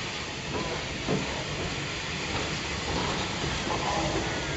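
Bulleid West Country class steam locomotive 34007 drifting into a station at low speed, with a steady hiss and rumble that grows gradually louder as it nears.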